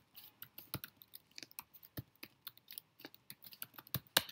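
Typing on a computer keyboard: a quick, uneven run of key clicks, with one harder keystroke near the end.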